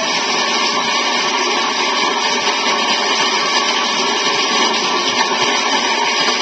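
A steady, loud rushing noise playing from a vinyl comedy LP on a turntable, unbroken and without speech.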